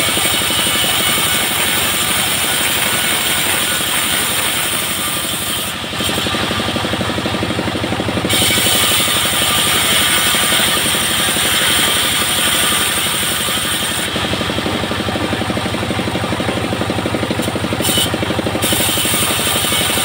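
Single-cylinder diesel engine running steadily, driving a homemade bandsaw mill, with an even fast chugging pulse throughout. A higher hiss rides on top and drops away twice, for about two seconds some six seconds in and for about four seconds from fourteen seconds in.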